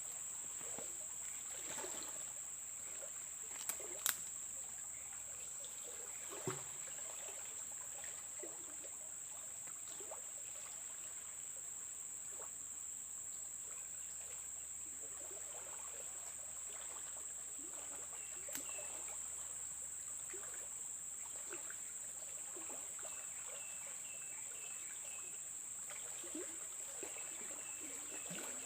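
Steady high-pitched insect drone, cricket- or cicada-like, over the wash of flowing river water. A sharp click about four seconds in and another partway through, and a run of short high chirps near the end.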